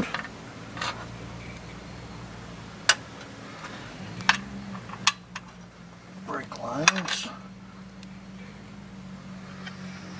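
About four sharp metal clinks spread over several seconds as a bolt and washer are worked by hand into a steel steering-box brace bracket on a truck frame, over a steady low hum.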